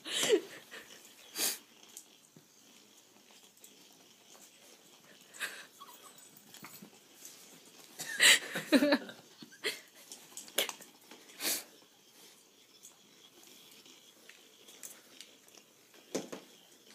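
A small puppy's short huffs and snuffles, scattered a second or more apart with quiet stretches between, the loudest cluster about halfway through, as it goes after a rolling weasel ball toy.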